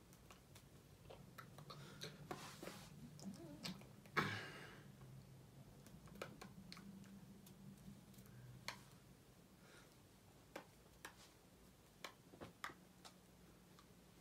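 Near silence in a small room: faint scattered clicks and taps from hands knocking together and against a held phone while signing, with one louder knock about four seconds in, over a faint low hum.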